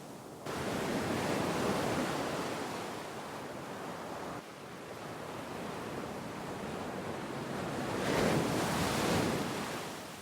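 Sea waves breaking and washing in two swells. The first cuts in sharply about half a second in and eases off; the second builds to the loudest point near the end, then fades away.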